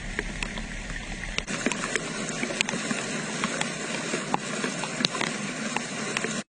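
Muddy floodwater rushing past sandbags and straw bales: a steady wash of noise with scattered sharp ticks. For the first second and a half it sits under a low rumble, which drops out at a cut. The sound cuts off abruptly at the very end.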